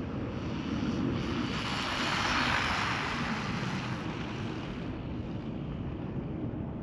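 Maverick DOHA RC car fitted with a Hobbywing 2435 4500KV brushless motor making a full-speed pass on 2S, at about 22 mph: a motor whine and tyre rush that builds, peaks two to three seconds in, and fades away by about five seconds.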